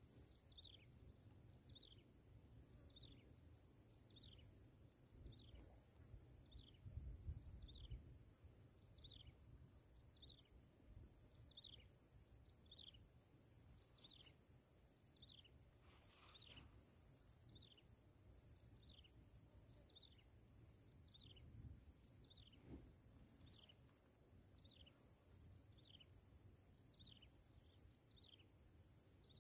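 Faint outdoor swamp ambience: a bird repeats a short, high, descending call about once every 0.7 seconds over a steady high-pitched insect drone, with faint low wind rumble.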